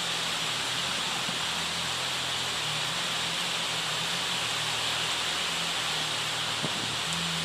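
Heavy rain hissing steadily, with the low, even hum of the loaded dump truck's diesel engine running slowly underneath.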